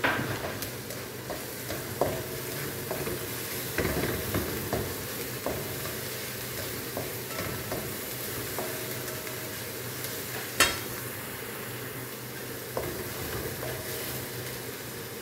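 Chopped onions sizzling in oil in a nonstick frying pan as they are browned, while a slotted spatula stirs and scrapes them, tapping irregularly against the pan. One sharper knock of the spatula on the pan comes about ten and a half seconds in.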